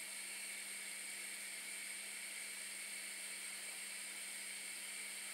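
A gas burner flame hissing steadily, with no change in level.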